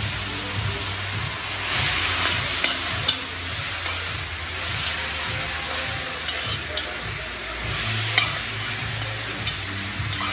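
Food sizzling as it fries in a pot while being stirred, with a utensil knocking against the pot now and then; the sharpest knock comes about three seconds in.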